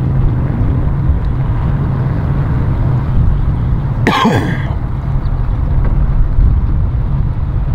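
Steady low rumble of wind and engines, with one short throat-clearing sound about four seconds in.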